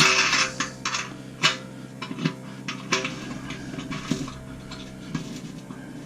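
Metal nut being threaded by hand onto a grill thermometer's stem at the kettle grill's lid, giving light metallic clinks and scrapes about once a second.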